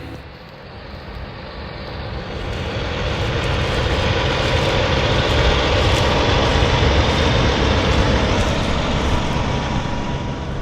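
Engine noise that swells over several seconds, holds, then slowly eases off, as of a motorised machine passing by.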